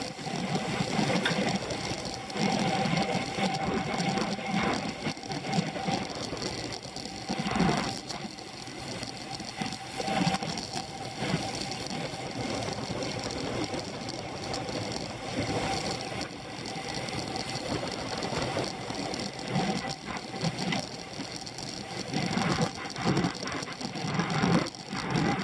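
Racing bicycle ridden at speed, heard through a camera clamped to its handlebar: continuous rattly road and drivetrain noise with many small knocks, swelling and easing as the ride goes on.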